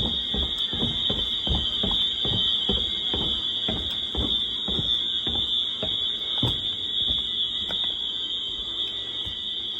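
Several Wheelock MT fire alarm horns sound at once, each on a different coding pattern. A steady high-pitched tone runs under a jumble of out-of-step pulses, which thin out in the last few seconds.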